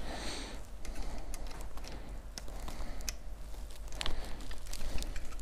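Flat-blade screwdriver snugging a hose clamp onto a hose, with faint, irregular small clicks and ticks of metal on metal, a few sharper than the rest.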